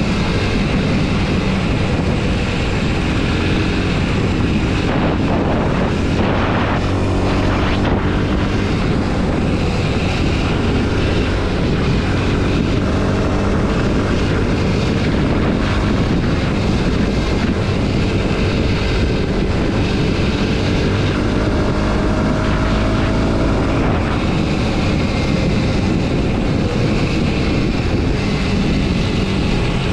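Kawasaki KLX230 SM's single-cylinder four-stroke engine running steadily, with gentle rises and falls in pitch.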